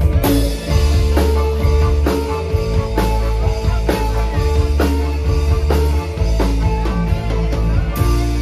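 Live band playing an instrumental dangdut piece through a large PA system during a sound check: drums, electric bass and electric guitars, with heavy bass and strong drum hits about once a second.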